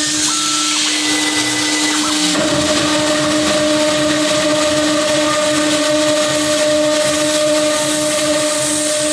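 DIY CNC router's spindle running at a steady speed with a steady whine and a hissing rush over it, typical of the machine milling aluminium; the whine's upper note grows stronger about two seconds in.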